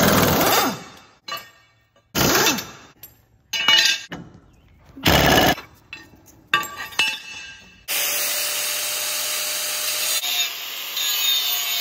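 Pneumatic air impact wrench rattling in five short bursts as it loosens the blade bolts under a John Deere mower deck. About eight seconds in, an angle grinder takes over, running steadily as it sharpens the edge of a steel mower blade.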